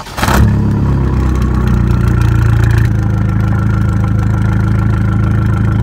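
Abarth 595's 1.4-litre turbocharged four-cylinder engine starting with a brief crank, heard through its Record Monza exhaust. It runs at a raised idle, then settles to a steady idle about three seconds in. The owner believes the exhaust's valve is stuck shut by an over-tight spring.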